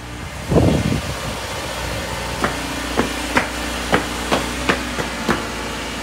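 Steady hum of a car engine idling as it warms up, with a brief low rumble about half a second in and then about eight sharp knocks spread over three seconds.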